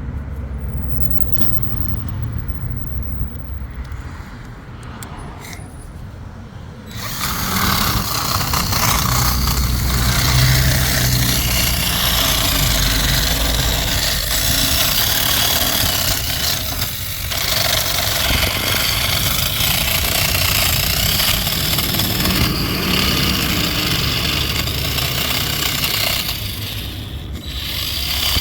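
A power tool starts about seven seconds in after a low hum and a few clicks. It runs as a steady, loud noise, cleaning paint and corrosion off a vehicle ground connection point, and pauses briefly near the end.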